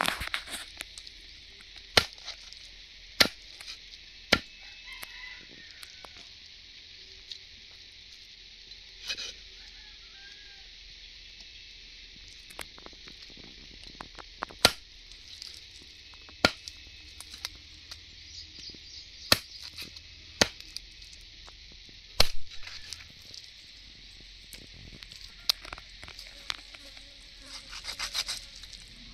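Sharp single knocks at uneven intervals, mostly one to three seconds apart, over a steady high hiss.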